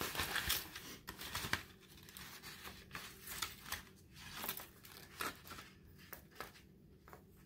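Folded paper kite rustling and crinkling in the hands as string is tied through a punched hole: soft, irregular crackles and scratches, busiest in the first second and a half.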